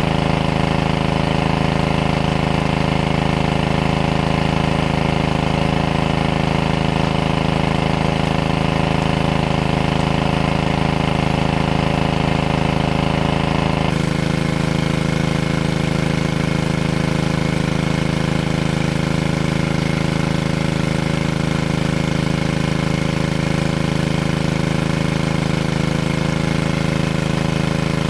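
A small engine running steadily at an even speed, its tone shifting slightly about halfway through.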